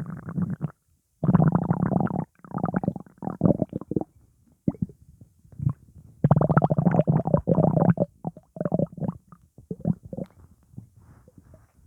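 Upset, gassy stomach rumbling and gurgling in several bursts, a long one about six seconds in, then trailing off into scattered small pops and squelches.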